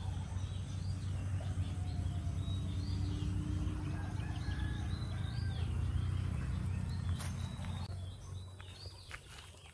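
Birds chirping over a steady low rumble of outdoor background noise, which fades about eight seconds in.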